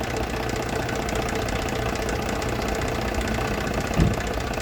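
Car engine running steadily with a rapid, even ticking or knocking, the engine noise that is the problem being looked into. A single low thump about four seconds in.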